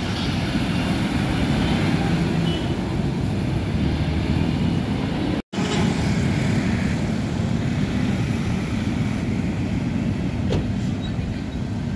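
Road traffic with heavy trucks passing: a steady low rumble of diesel engines and tyres. The sound cuts out for a split second about halfway through.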